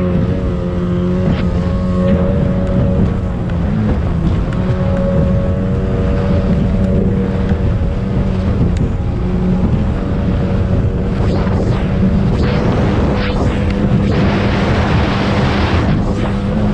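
Racing speedboat's engine running steadily at speed, heard from on board with wind on the microphone. Near the end the hull knocks on the chop and there is a rush of water noise.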